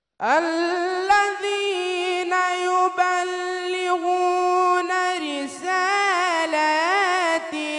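A teenage boy's voice in melodic Quran recitation: after a brief silence he holds one long, high note at a steady pitch. In the second half the note turns into quick wavering ornaments, broken briefly twice.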